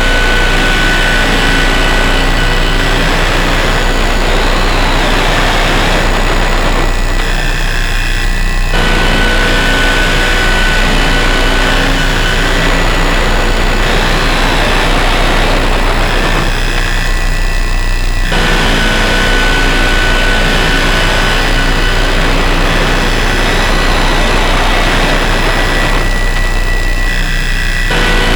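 Harsh noise drone from DIY synthesizers pushed through distortion pedals: a loud, dense wall of noise over a steady low hum, with thin high whistling tones on top. Its texture thins out and returns about every nine and a half seconds, like a loop repeating.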